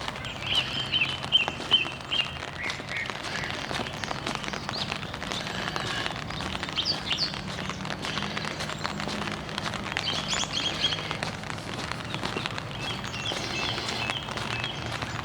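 Small birds chirping in short repeated trills, on and off, over a dense patter of raindrops on an umbrella and a low steady hum.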